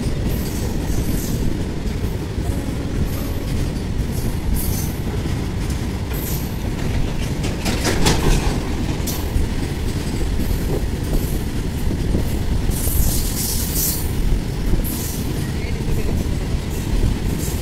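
Goods train of covered wagons rolling past, a steady rumble of wheels on the rails with brief high squeaks now and then, the longest about two-thirds of the way through.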